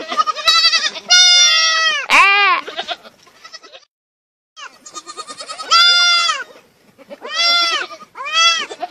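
Young lamb and goat kid bleating again and again in high calls while competing for milk at a bottle, with a brief silent break near the middle.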